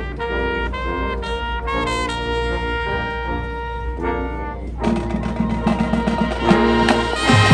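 High school marching band playing: the brass section holds sustained chords that change every second or so. About two-thirds of the way through, the full band comes in louder and busier, with sharp percussion hits.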